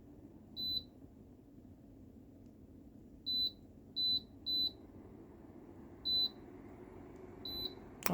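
Dreo ceramic space heater's control panel beeping as its buttons are pressed: six short high beeps, irregularly spaced, three of them close together in the middle. The heater's fan hums steadily underneath.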